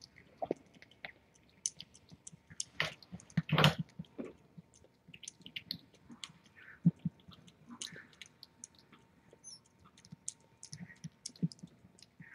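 Calico mother cat eating wet food from a stainless steel bowl: irregular wet chewing smacks and clicks, with a couple of louder ones about three seconds in.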